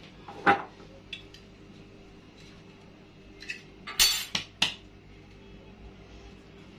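Stainless-steel kitchenware clinking: a sharp clink about half a second in, a few light taps, then a louder clatter of metal with a short ring about four seconds in, as steel bowls and a spoon are handled and set down.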